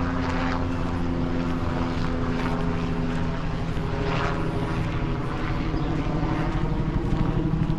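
An engine running steadily at a constant pitch, a low drone.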